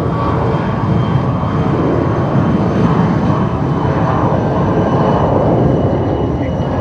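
Steady engine noise from a fixed-wing aircraft on the airfield, with faint steady high whine tones over it, mixed with wind rumbling on the microphone.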